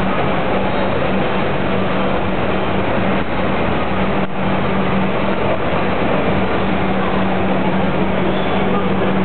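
Steady background din inside a large supermarket: a constant low hum under a dense, even noise, dipping briefly twice near the middle, with no clear voices.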